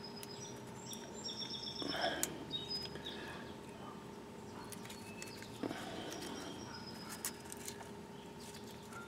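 Faint outdoor background of birds chirping, loudest about one to two and a half seconds in, with a few small sharp clicks from a wire connector and jumper being handled. A faint steady tone runs underneath.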